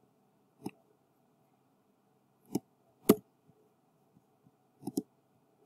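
A handful of sharp, single clicks from a computer mouse and keyboard, unevenly spaced over a few seconds, the loudest about three seconds in, as text is selected, copied and pasted in a word processor.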